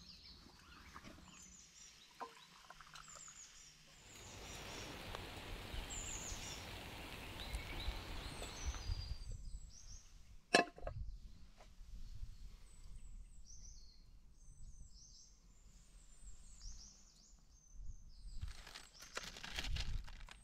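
Woodland birds chirping and singing. A hissing spell of noise runs for a few seconds about four seconds in, there is one sharp knock about halfway through, and a rustle of handling near the end.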